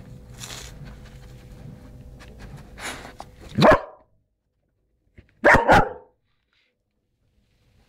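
German Shepherd barking: one loud bark about three and a half seconds in, then two barks in quick succession about two seconds later.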